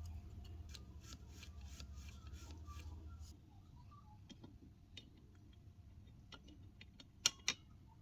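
Small mechanical clicks and ticks, about three a second over a low hum for the first three seconds, then scattered single ticks, ending with two sharp clicks close together near the end.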